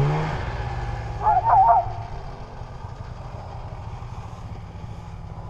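Dog sled running along a packed snow trail: a steady rumbling hiss of the runners and the ride. A short wavering cry breaks in about a second in.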